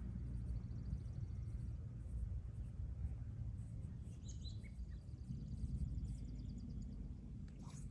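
Wind rumbling on the microphone, with a small bird singing two fast trills of rapidly repeated high notes, the second and louder one starting a little past the middle with a few chirps.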